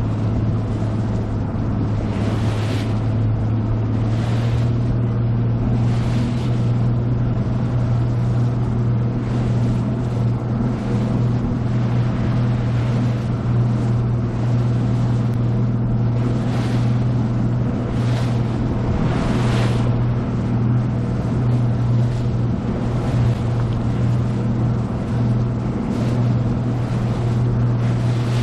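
2018 Nitro Z20 bass boat under way, its outboard motor running with a steady drone while the hull slaps and splashes through the waves every one to three seconds.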